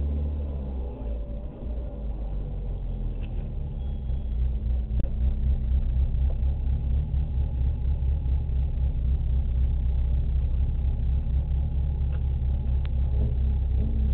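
Rally car's engine idling and pulling away gently at low revs, heard from inside the cabin as a steady low rumble.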